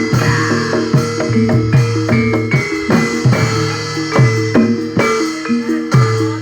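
Live barongan accompaniment music: drums struck in a steady beat, with sharp accents about once a second, over ringing pitched percussion notes.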